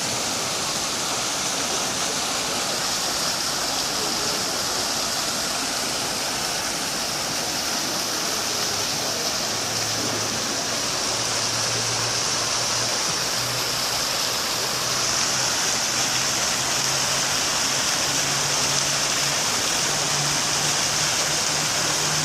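Indoor fountain splashing, its dragon-head spouts pouring water into the basin: a steady rush of falling water that gets a little louder about two-thirds of the way in.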